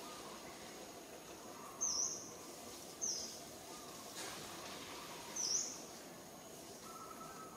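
A small bird giving three short, high chirps spaced a second or two apart, over a faint steady outdoor background hiss.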